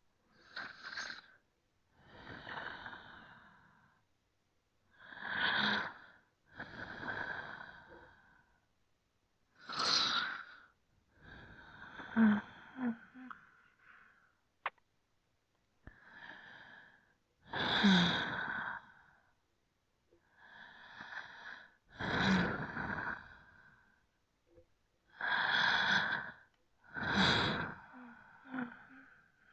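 Human breathing: slow, deep inhales and exhales, about a dozen separate breaths of one to two seconds each, with dead silence between them. A few exhales carry a brief low voiced sound, like a sigh.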